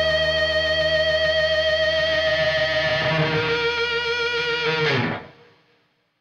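Closing music: guitar holding a sustained chord, with one note changing about three seconds in, then sliding down in pitch near five seconds and fading out.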